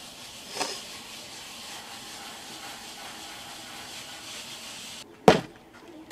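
Gloved hands rubbing salt into a fleshed snake skin on a board: a steady, gritty hiss that cuts off about five seconds in, followed by one sharp smack.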